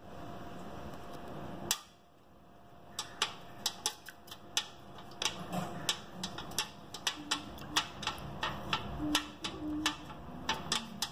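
Snakeheads and a walking catfish thrashing in a shallow basin of water: irregular sharp slaps and knocks of tails against the water and the basin wall. There is one knock under two seconds in, and then several a second from about three seconds in.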